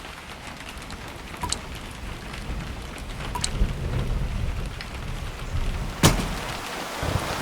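Storm sounds: steady heavy rain with a low rumble of thunder that grows louder, and one sharp crack about six seconds in.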